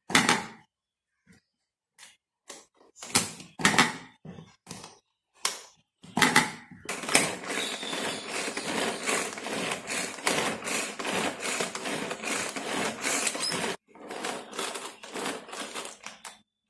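A Pigeon 900 ml pull-cord hand chopper is worked with an onion inside, its blades spinning and its ratchet clicking. For the first six seconds there are separate short clicks and knocks, fitting the starting trouble of the first few pulls. From about six seconds in comes a fast continuous rattle of nearly eight seconds, then a few separate pulls near the end.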